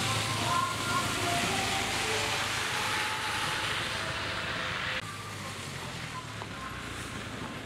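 A school bus and a pickup truck driving past on a dusty road: a steady rush of engine and tyre noise with a low hum. About five seconds in it drops abruptly to the quieter engine of a school bus passing.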